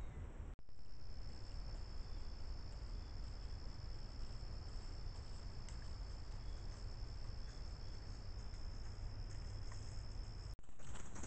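A night insect calling in one steady, high-pitched trill that starts about half a second in and cuts off abruptly near the end, over a low steady rumble.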